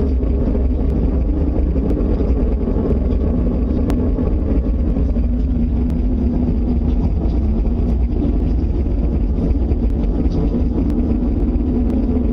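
Loud, steady low rumble with a droning tone in it, running without a break: an unexplained noise that the listeners fear is an approaching tornado.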